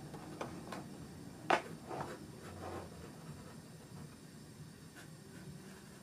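Pencil sketching on drawing paper: faint, short scratching strokes, the loudest about a second and a half in.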